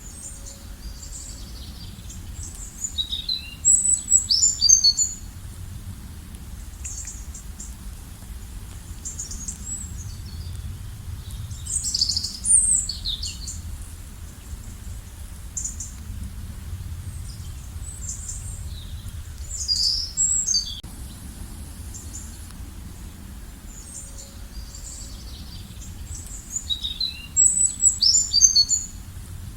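Bird song: four loud phrases of quick, high chirps about eight seconds apart, with fainter chirping in between, over a steady low background rumble.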